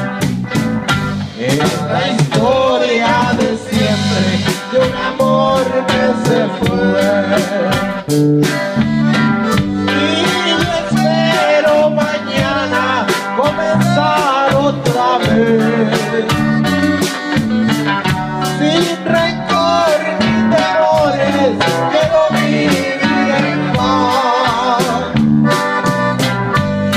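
Live norteño band playing: button accordion melody over drum kit, electric bass and guitar, with a steady, even drumbeat.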